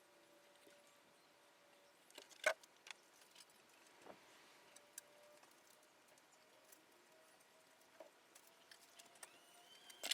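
A few light clicks and knocks over a faint steady hum. The loudest knock comes about two and a half seconds in, and a cluster of clicks comes near the end.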